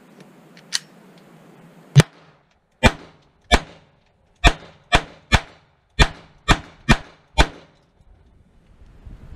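Handgun shots: ten sharp cracks at a steady pace of roughly two a second, with a fainter single crack shortly before the string starts.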